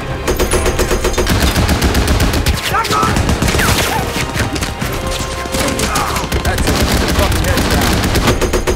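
Machine guns on several Sherman tanks firing long rapid bursts together: a dense rattle of overlapping shots that starts suddenly and keeps going, over a low rumble.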